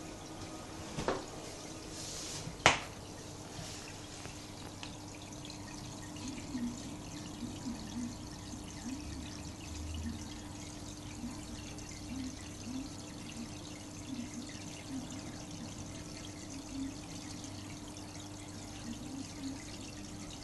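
Aquarium filter water trickling and dripping over a steady hum, with two knocks in the first three seconds, the second the loudest.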